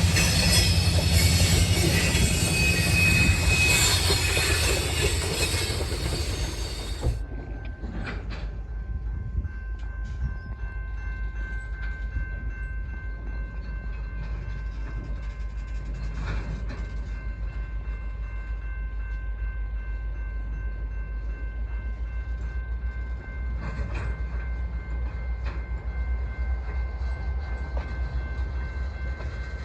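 Train on the rails: loud wheel and rail noise, then about seven seconds in an abrupt cut to a quieter, steady low rumble with a few faint steady tones and occasional light clanks.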